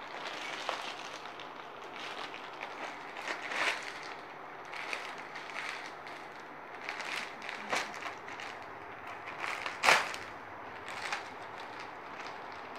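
Plastic packaging rustling and crinkling in short bursts as hands open a plastic courier pouch and handle a saree in clear plastic wrap, with one sharp, loud crackle about ten seconds in.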